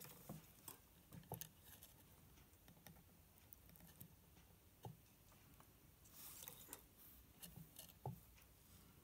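Near silence, broken by faint scattered clicks and taps as a jumper wire and soldering iron are handled against a wooden workbench, with a brief soft hiss about six seconds in.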